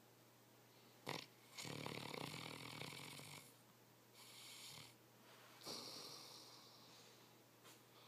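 Saint Bernard snoring in its sleep: a brief snort about a second in, then a long snore, followed by softer breaths and another snore with a short snort near the end.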